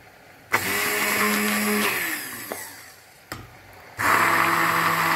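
Immersion (stick) blender puréeing cooked artichokes and a potato in a bowl, run in two bursts. It starts about half a second in and winds down with a falling pitch around two seconds in. After a click, it runs again from about four seconds in.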